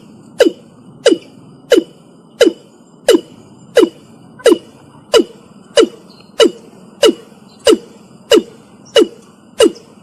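Watercock calling: a steady series of short notes, each dropping in pitch, at about three notes every two seconds.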